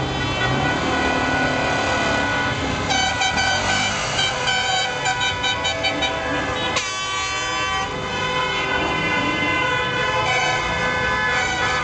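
Car horns honking from the departing rally cars, several pitches overlapping: a run of quick repeated toots from about three seconds in, then horns held on steady tones. Underneath, the low running of the cars' engines as they pull slowly away.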